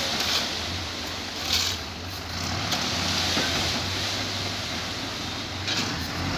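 Dump truck's engine running steadily while its raised tipper bed unloads sand, with a steady hiss over the low engine hum.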